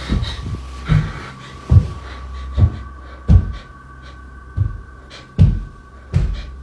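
Heavy footsteps climbing a wooden staircase, heard from an upstairs bedroom through a phone's microphone. They come as about eight dull thumps at a slow, even pace, a little over one a second, with a short pause about halfway, over a steady hum.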